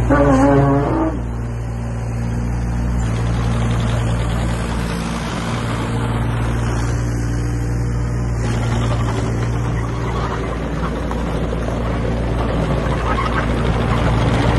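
JCB 8026 CTS mini excavator's diesel engine running steadily while the machine slews and works its hydraulics. A short squeal sounds in the first second.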